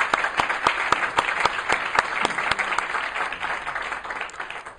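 Audience applauding: a dense clatter of many hands clapping that fades out near the end.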